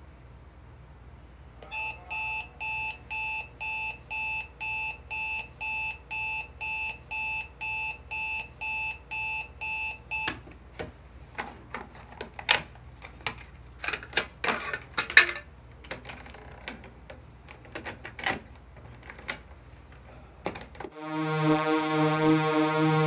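Digital alarm clock beeping in an even pattern, about two beeps a second, until it stops about ten seconds in. A run of clicks and clunks follows as a cassette tape is handled and loaded into a GE portable cassette radio. Music with a steady beat starts near the end.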